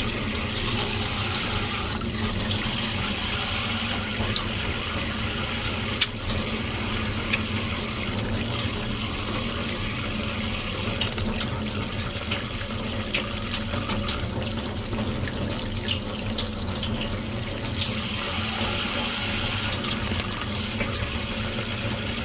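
Water running steadily from a tap, the water for bathing pet budgerigars, with a few short high ticks scattered over it.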